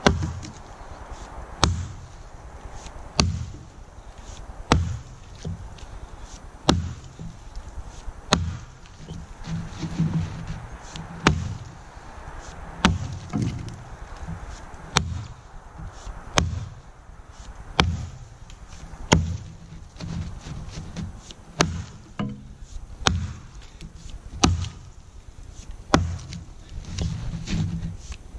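A double-bit cruiser axe chopping into a log, one sharp strike about every one and a half seconds in a steady rhythm, about nineteen blows in all.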